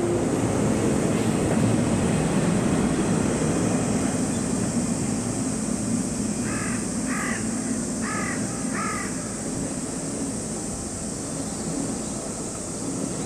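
Two DD51 diesel-hydraulic locomotives working in multiple, their engines giving a steady low drone as the train approaches. About halfway through, a crow caws four times.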